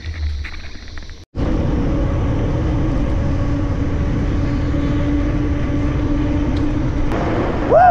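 Steady road drone of a moving vehicle with wind on the microphone and a steady low hum. After a brief dropout about a second in, the drone comes back louder. Near the end a short pitched tone rises and then falls.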